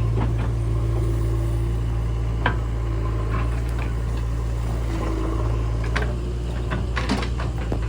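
Heavy diesel engine running steadily at a low, even speed, with a few short knocks and clicks over it.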